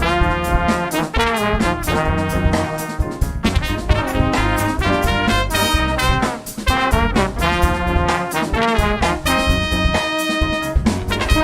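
Brass band playing a lively tune: trumpets and trombones in held and moving chords over a steady drum beat.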